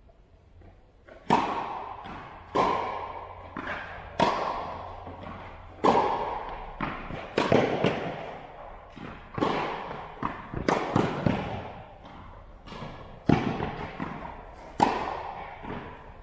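A tennis rally: about a dozen sharp ball strikes from rackets and bounces on the court, one every second or so. Each ends in a long echo off the metal walls and roof of the indoor hall.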